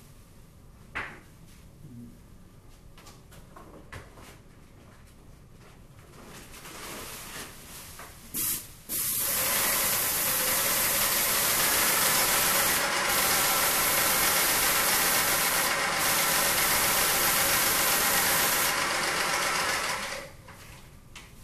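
Sprayer spraying the ceiling: a short spurt about eight seconds in, then a loud steady hiss of spray for about eleven seconds, which cuts off near the end.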